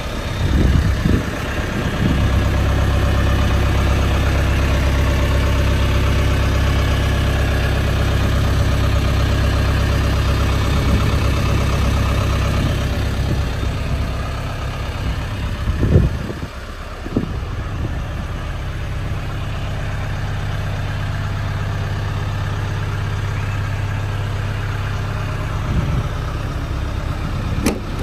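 Diesel engine of a 1979 Land Rover 109 Series III Santana idling steadily, with a few brief knocks, the loudest about sixteen seconds in.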